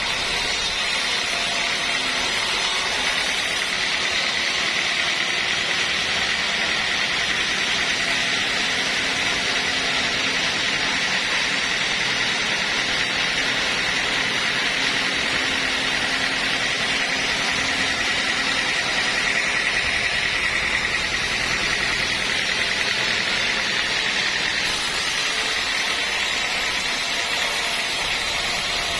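Sawmill machinery running with a steady, even noise that does not change for the whole stretch.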